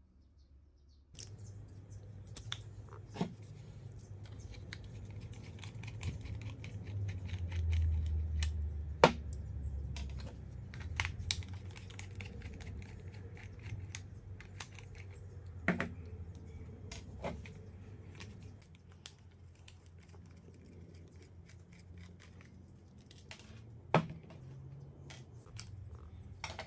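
A screwdriver working the screws out of a plastic cordless-tool battery pack case, with sharp plastic clicks and knocks as the case is handled and its cover is pried off.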